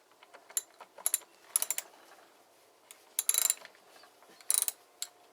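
Socket ratchet clicking in several short runs, used on the chainsaw's bar nuts.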